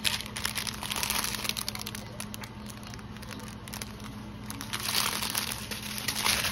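Small zip-lock plastic bags of diamond-painting resin drills crinkling as they are handled and bunched together, loudest about a second in and again near the end.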